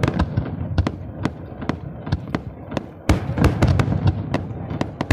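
Aerial firework shells bursting in a rapid, irregular series of sharp bangs over a crackling bed, with a denser, louder volley starting about three seconds in.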